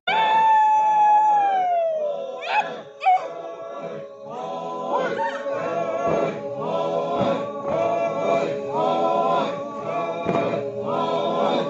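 Music with singing voices: a long held note that slides down, then a sung melody in short repeated phrases.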